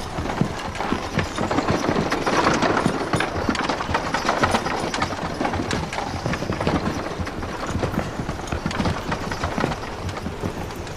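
Horses' hooves clip-clopping on a dirt street, several horses walking at once, so the hoofbeats fall irregularly over a steady background bustle.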